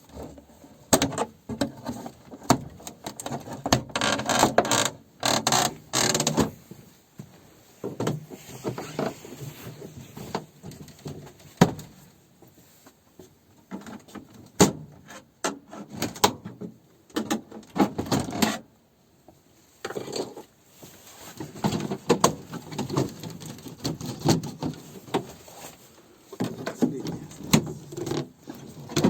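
Irregular knocks, clinks and clatter of hard objects being handled, coming in clusters with short quieter gaps.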